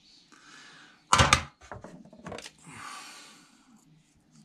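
A screwdriver working a small jet out of a lawnmower carburettor held by hand: one sharp knock about a second in, a few light clicks, and soft rustling.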